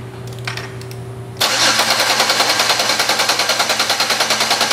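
Car's electric starter motor cranking the engine: it starts about a second and a half in with rapid, even pulses and cuts off sharply near the end.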